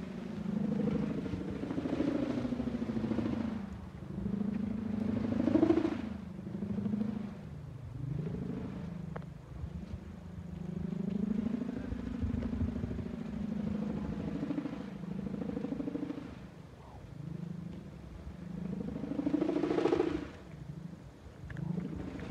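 Bamboo hummer (sawangan) on a Madurese kite droning in the wind: a wavering hum whose pitch slides up and down as the wind gusts, swelling louder about six seconds in and again near the end.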